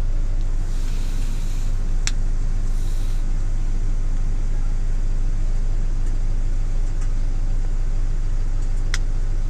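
Campervan engine idling steadily with a low drone, heard from inside the cab. Two sharp clicks, about two seconds in and near the end.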